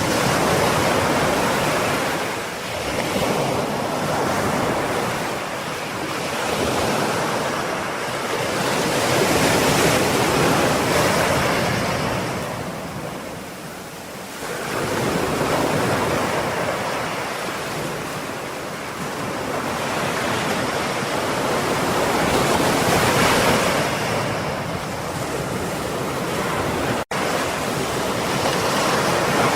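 Ocean surf: waves breaking and washing up the shore, the noise swelling and ebbing every few seconds. The sound cuts out for an instant near the end.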